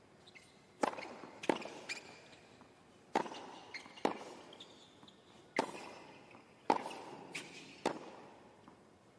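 Tennis rally on a hard court: a ball struck back and forth by rackets, with a sharp crack about every second or so, starting with the serve a little under a second in, each crack followed by a short echo.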